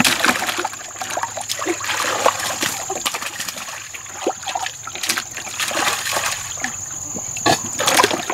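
Irregular splashing and sloshing in shallow muddy water as fish are grabbed by hand and dropped into a plastic basket, with a few louder splashes near the end.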